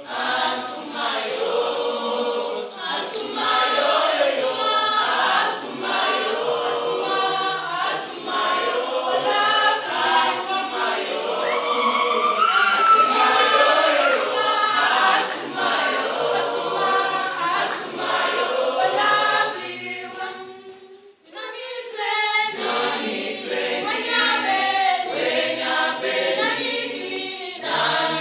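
Mixed choir of men's and women's voices singing unaccompanied, breaking off briefly about twenty seconds in and then coming back in.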